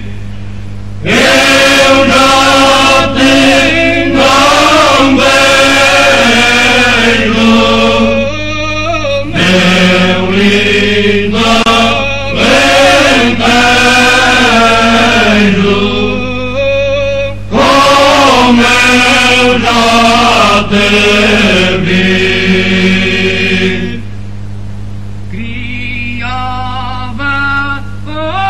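Background music: chanted vocal music over a steady low drone. The voices pause briefly near the start and again near the end while the drone carries on.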